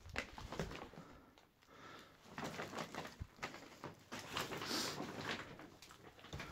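Footsteps scuffing and crunching over a rubble-strewn floor: an irregular run of small knocks and scrapes.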